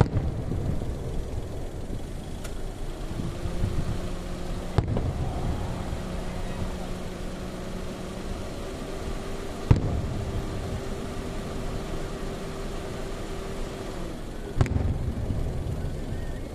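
Aerial firework shells bursting: four sharp booms about five seconds apart, the loudest about ten seconds in, over a low rumble. A steady low hum runs through much of the middle.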